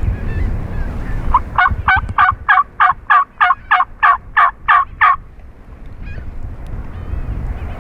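A wild turkey call of about a dozen evenly spaced yelps, roughly three a second, lasting a few seconds and then stopping. Low wind rumble on the microphone comes before it.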